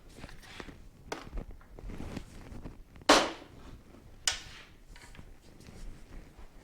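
Tools and parts knocking and clicking as a motorcycle is taken apart: several light clicks, then two sharp loud knocks a little over a second apart near the middle, each with a short ringing tail.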